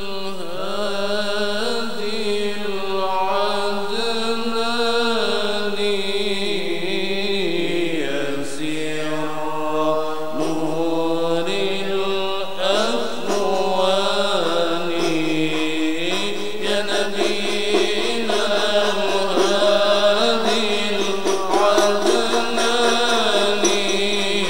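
Background music: a sung chant with long, wavering held notes.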